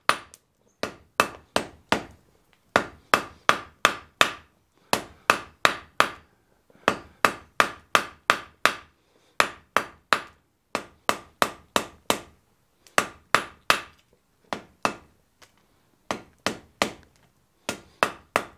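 Hand hammer striking a red-hot wrought iron strap on an anvil, with sharp blows about three a second in runs of three to six separated by short pauses. The smith is forge-welding the broken end of the strap back together.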